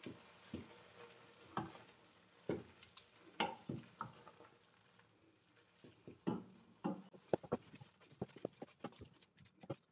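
Wooden spoon stirring grated carrots in a steel pot: irregular scrapes and knocks of the spoon against the pot, coming faster in the second half, over a soft sizzle of the carrots cooking on medium-high heat.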